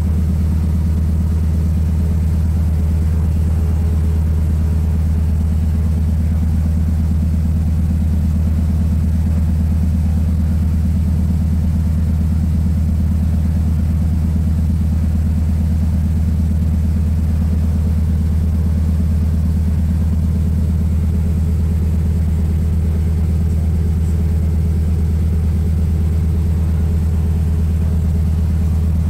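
Steady low drone of a de Havilland floatplane's engine and propeller running at low power on the water, heard from inside the cockpit.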